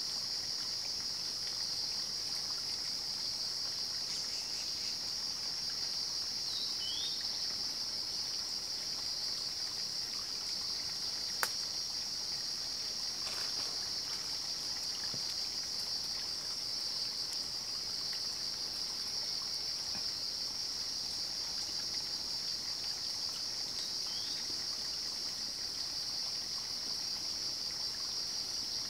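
A steady, unbroken high-pitched chorus of night insects over a faint background hiss, with a single sharp click a little over a third of the way in.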